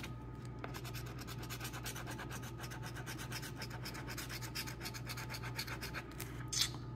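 A coin scratching the coating off a scratch-off lottery ticket: quick, repeated scraping strokes, with one slightly louder scrape near the end.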